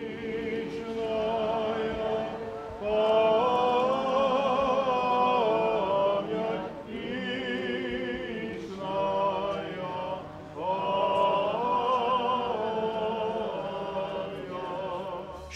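Priests singing Eastern-rite liturgical chant for the blessing of a monument. The voices hold long notes in several phrases, with short breaks between them.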